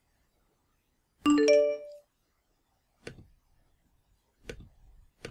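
Mac system chime, a short bright multi-note ding that rings out for under a second, signalling that the software installation has finished. A few faint clicks follow.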